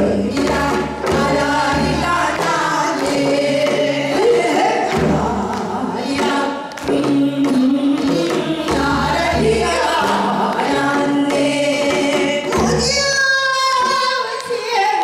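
Several women singing Korean traditional folk song (gugak) into microphones, voices passing between singers and joining together. Near the end a single high voice holds a long note with a wide, shaking vibrato.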